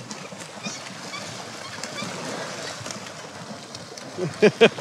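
Wind and water around a boat drifting in open sea, with faint scattered bird calls. About four seconds in, a run of loud, rapid calls starts, about four a second, from the seabirds crowding the feeding frenzy.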